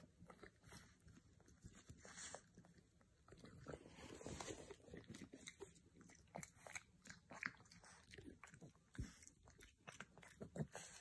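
A teething French bulldog puppy gnawing on a frozen carrot: faint, irregular crunches and clicks of its teeth on the hard carrot.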